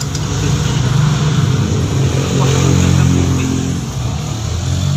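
A motor vehicle's engine running close by, its pitch rising and then falling, loudest through the middle.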